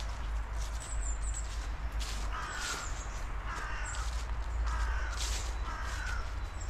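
A bird calling repeatedly, short calls about once a second starting a couple of seconds in, over a low steady rumble.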